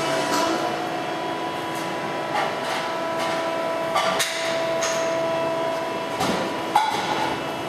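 Blown 357 cubic inch small-block Chevy with a 6-71 supercharger running steadily, a steady whine under irregular sharp knocks, the sharpest near the end.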